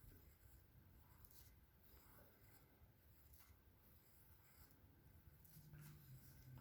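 Near silence, with faint, scattered scratching of drawing on paper.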